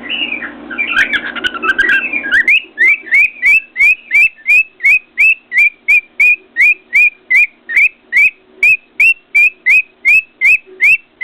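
A cockatiel opens with mixed chirps, then whistles a rapid, even run of short rising notes, about three a second. Each note is paired with a sharp tap of the cockatiel's beak against a mirror.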